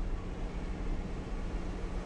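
Jeep's engine running steadily, a constant low hum under an even hiss.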